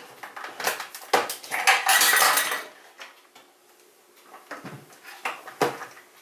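Metal clattering and clicking as a kneading hook is fitted into a stand mixer and its stainless-steel mixing bowl is handled. A dense stretch of rattling about two seconds in, then a few sharp clicks near the end.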